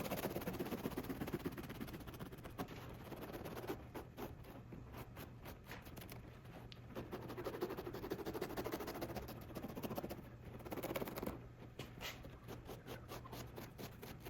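A blade carving through seat foam: scratchy, rustling cutting with many small clicks, louder in spells, as the worn bolster foam is cut away to make a rectangular opening for a patch.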